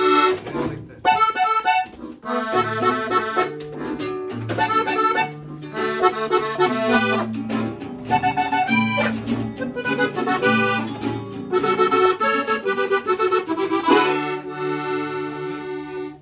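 Piano accordion played live, running through a melody in phrases over a steady bass line.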